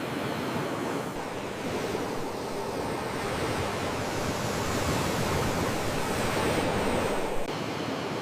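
Ocean waves surging and washing on the shore: a steady rushing that swells slowly and drops off abruptly about seven and a half seconds in.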